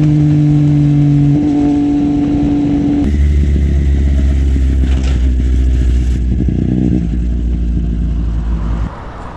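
Motorcycle engine running at high revs, its pitch easing down, then about three seconds in the note drops to a low, deep running as the bike slows off the throttle. Near the end it goes quieter.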